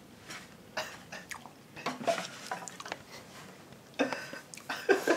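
Irregular short crunches and clicks as a piece of baked crushed-crisp brick is broken off, bitten into and chewed.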